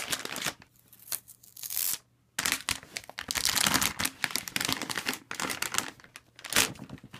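Clear plastic bag being pulled off a new all-in-one computer and crumpled: crinkling and rustling plastic in irregular bursts, with a short pause about two seconds in.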